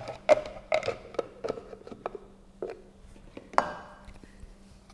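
Plastic lid and jar of a Philips mixer grinder's pulp extractor jar being closed and locked into place: a string of clicks and knocks, the loudest about three and a half seconds in with a brief ring.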